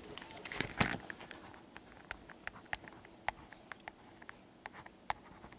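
Playing cards being handled and laid on a table: light, irregular clicks and taps, thickest in the first second and sparser after.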